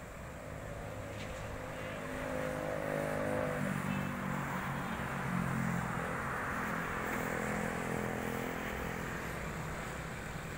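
Road traffic on a wet highway: heavy truck engines running under the hiss of tyres on the wet road. It grows louder from about two seconds in and fades slowly toward the end.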